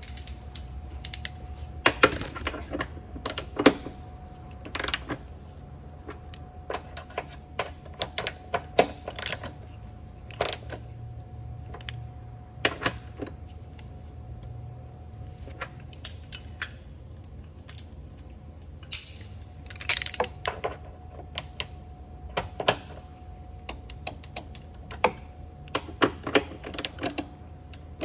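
Hand tools clicking and clinking on metal as the carrier bearing support bolts are tightened with a torque wrench: irregular sharp clicks, some in quick clusters.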